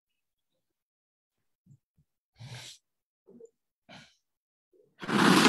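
A few short, soft noises spaced apart. About five seconds in comes a loud rushing burst of noise, the start of a promotional video's soundtrack played over a screen share, leading into music.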